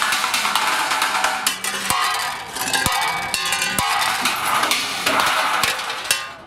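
Improvised street drum kit of cooking pots, woks, pans, paint buckets and metal trays played fast: dense clanking metallic hits with a few deeper thuds in the middle, fading out near the end.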